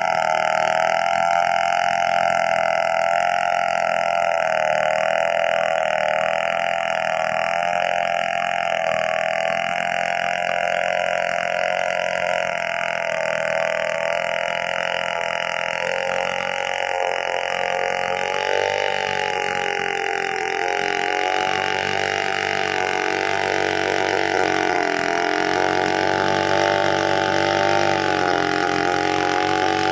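Two-stroke chainsaw engine running steadily, its pitch wavering slightly.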